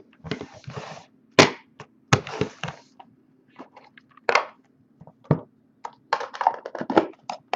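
Trading-card packaging being opened and handled: a string of sharp clicks and snaps, with short bursts of crinkling plastic.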